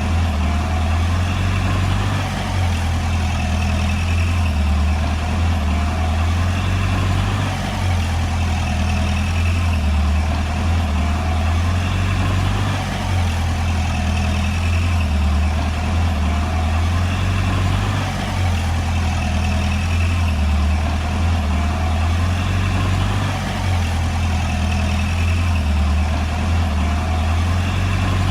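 Komatsu D20P bulldozer's diesel engine running steadily, its low drone swelling and easing every few seconds.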